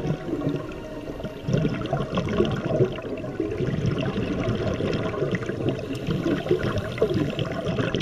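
Scuba diver's exhaled bubbles bubbling and gurgling underwater, an irregular, continuous bubbling with short wobbling pitch glides.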